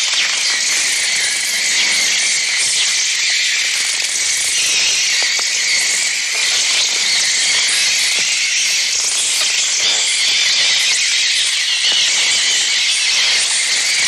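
A swarm of small birds shrilling and fluttering in a dense, unbroken high-pitched mass; the bird sound is electronic, made on the Mixtur-Trautonium rather than recorded from live birds.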